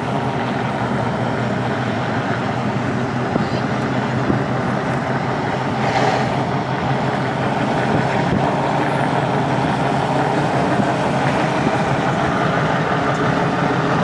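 Steady running noise of a motor vehicle: a constant low hum under an even rushing noise.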